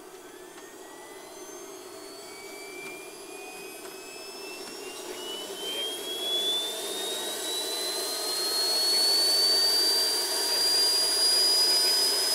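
Small gas turbine engine in a 5½-inch gauge model GT3 locomotive spooling up: a whine rising steadily in pitch and growing louder for about ten seconds, then levelling off near the end, over a steady rush of turbine noise.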